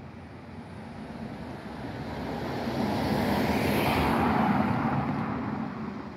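A car driving past close by, its tyre and engine noise rising, peaking about four seconds in, then fading.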